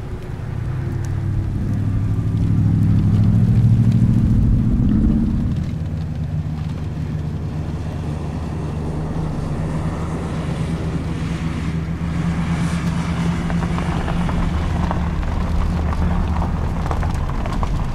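A vehicle engine running steadily, growing louder about two seconds in and easing back after about five seconds.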